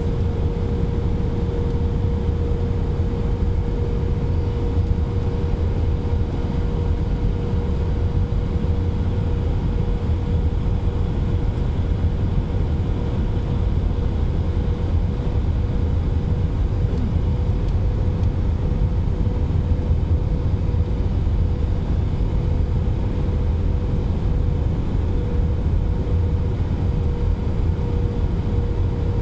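Steady in-flight cabin noise of an Airbus A320, heard from a window seat over the wing: a low, even rumble of the jet engines and rushing air, with a steady hum running through it.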